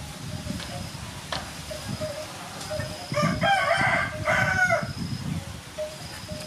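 A rooster crowing once, starting about three seconds in and lasting a little under two seconds.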